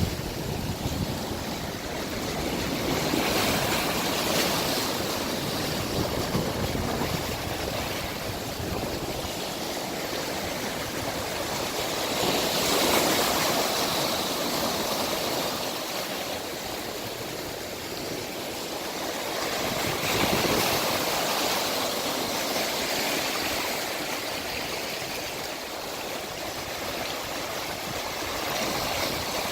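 Sea waves breaking and washing up on the shore, a continuous surf noise that swells with each breaker about every seven to eight seconds.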